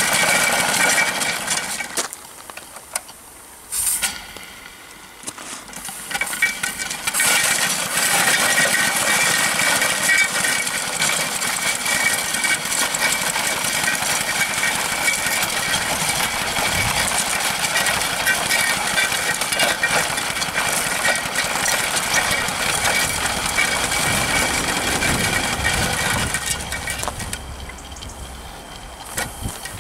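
2-inch scale Allchin live-steam traction engine's single-cylinder steam engine running, with a steady hiss of steam. The sound drops away briefly twice in the first few seconds and once more near the end.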